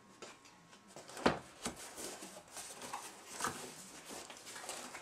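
Cardboard shipping box being opened at one end: a sharp knock about a second in, then cardboard flaps scraping and rustling as the end is pulled open.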